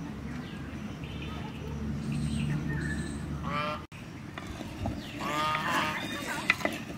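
Two short calls from an animal, each a stack of tones that bends upward, the first about three and a half seconds in and the second near the six-second mark. Behind them is a steady low rumble, and the sound drops out briefly just before the four-second mark.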